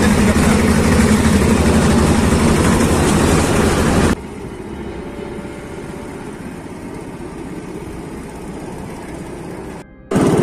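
Small engine of a motorized rail trolley running steadily as it travels along the track, heard from on board. About four seconds in the sound cuts to something much quieter, and the loud engine noise comes back just before the end.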